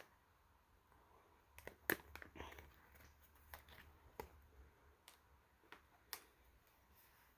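Faint, scattered clicks and light rustling: a plastic welding hood and its lens holder being handled.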